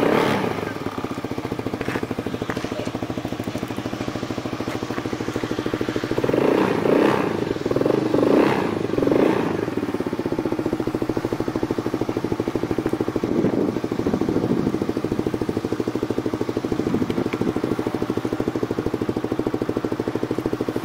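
Small 110 cc fuel-injected ATV engine idling steadily, given a few short blips of throttle about six to nine seconds in, after which the revs fall back to idle. The throttle-limiter screw is turned in, so the engine cannot be given full gas.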